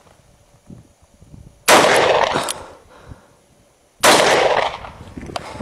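Two shots from a Llama Comanche III .357 Magnum revolver, about two and a half seconds apart. Each sharp report trails off over about a second.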